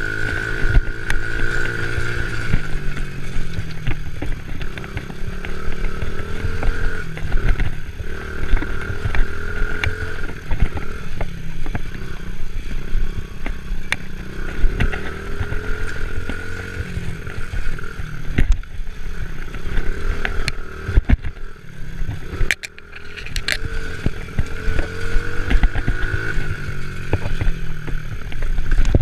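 Four-wheeler (ATV) engine being ridden along a bumpy dirt trail, its pitch rising and falling again and again as the throttle is worked, with short knocks and rattles from the bumps. The engine eases off briefly about three-quarters of the way through, then picks up again.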